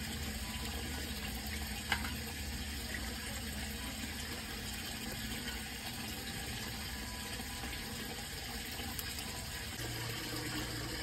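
Water running steadily from a tap while crab pieces are rinsed and cleaned by hand, with one sharp click about two seconds in.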